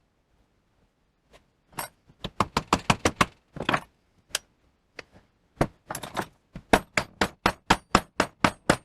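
Rapid series of sharp metal knocks and clinks, several a second with a short pause midway, as a tight-fitting part of a Boxford lathe apron is forced home in a bench vise.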